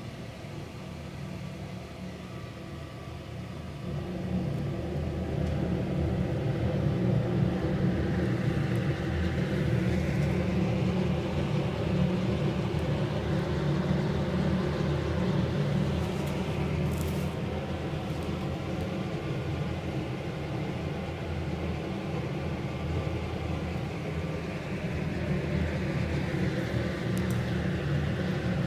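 Pyrolysis wood-gas boiler burning hard: a steady rumbling roar from the jet of flame in its open firebox, getting louder about four seconds in.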